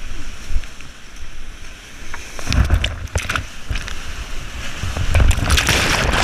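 Whitewater rapids rushing around a kayak, with paddle strokes and splashes of water hitting close to the microphone. The splashing gets heavier about two and a half seconds in and again near the end.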